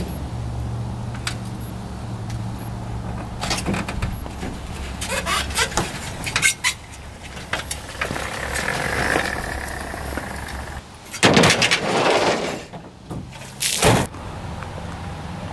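Dirt bike rolled down an aluminium loading ramp off a pickup bed, with clunks and rattles, then the aluminium ramp clattering as it is pulled down. Near the end a pickup tailgate is slammed shut with one loud bang.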